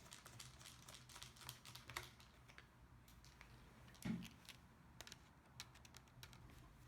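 Faint, scattered small clicks and ticks of a precision screwdriver backing out the small screws that hold a Lenovo ThinkPad T520i's LCD panel, with a soft knock about four seconds in.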